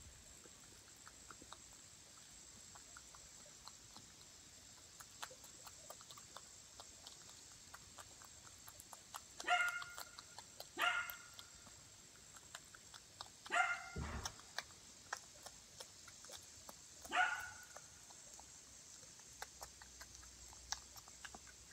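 A dog gives four short barks around the middle, the last a few seconds after the other three, over the steady small clicks and smacks of a groundhog chewing a piece of peach.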